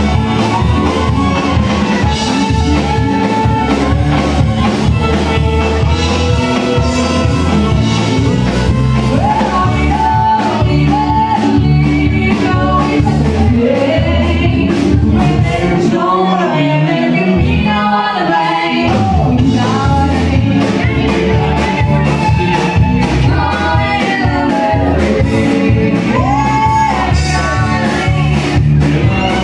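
Live band playing loud through the PA, with guitars and drums, and a singer's voice heard from about a third of the way in. Just past the middle, the bass and drums drop out for a couple of seconds, then come back in.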